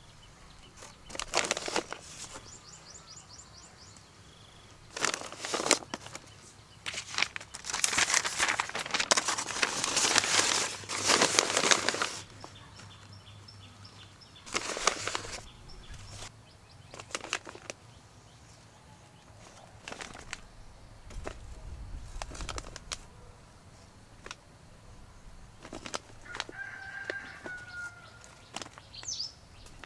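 Chickens flapping their wings in a series of rustling bursts, the longest lasting several seconds in the middle. A short hen call comes near the end.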